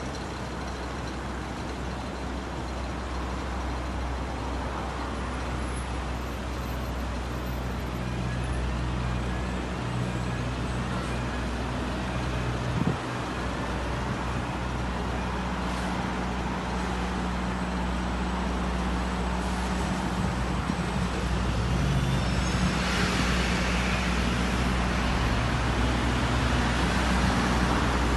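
Busy road traffic: buses, vans, cars and lorries running and passing, a steady engine hum under the hiss of tyres on a wet road, growing louder toward the end. A brief knock about thirteen seconds in.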